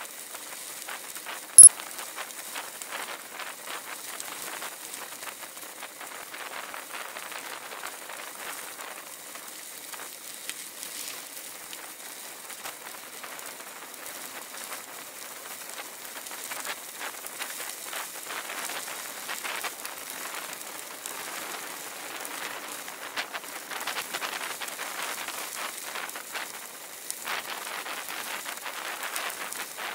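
Bicycle tyres crunching and rattling over a loose gravel road, a dense steady crackle. One sharp knock about one and a half seconds in is the loudest moment.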